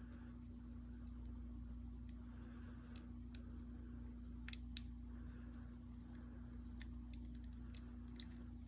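Scattered light metallic clicks and ticks of a half-diamond pick working the sliders of an OnGuard slider lock, with the loudest pair a little before halfway. A steady low hum runs underneath.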